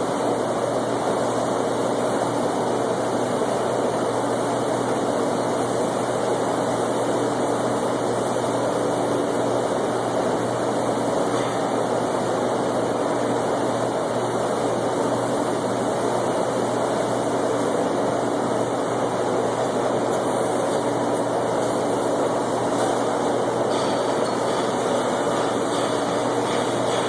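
A steady mechanical drone: an even rushing noise with a low steady hum under it, unchanging in pitch and level.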